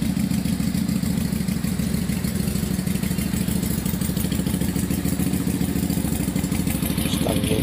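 Keeway V-twin cruiser engine idling steadily through an aftermarket free-flow exhaust.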